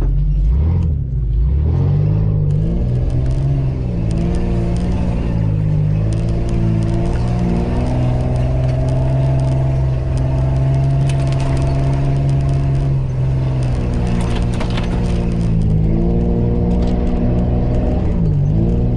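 Mitsubishi Pajero's 3.0-litre V6 petrol engine heard from inside the cabin, driving a muddy off-road track. Its pitch rises and falls with the throttle near the start and again a few seconds before the end, and it holds steady for several seconds in the middle, with scattered knocks and clatter.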